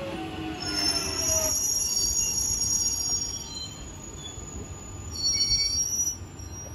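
London Underground 1996 Tube Stock train braking to a stop at the platform: its drive whine falls in pitch and fades out, and high-pitched brake squeals start about half a second in, with a second, louder squeal near the end as it halts.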